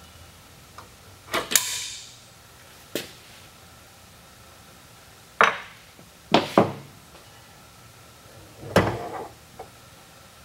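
Metal parts of a Rotax 912 ULS propeller gearbox clanking and knocking as they are pulled off the housing and set down on a wooden workbench. About six separate knocks come a second or more apart, and one early clank rings briefly.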